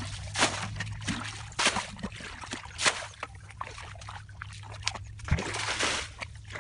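Shallow muddy water sloshing and splashing as a plastic bucket scoops and throws it out of a rice-field channel, with three sharp splashes a little over a second apart in the first three seconds.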